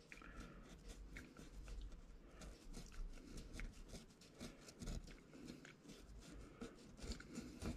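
Paintbrush dabbing and scraping thinned paint onto rough model scenery ground, a faint run of irregular small scratches and ticks.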